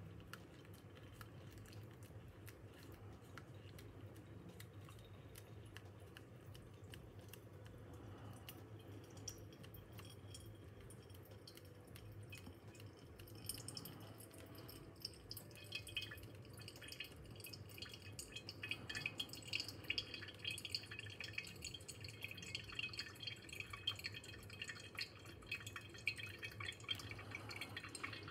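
Coffee dripping from a pour-over dripper into a glass server, faint at first, the drips growing denser and louder about halfway through.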